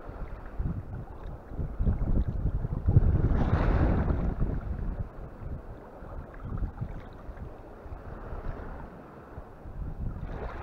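Wind buffeting the microphone, a gusty low rumble that swells into a stronger gust about three seconds in.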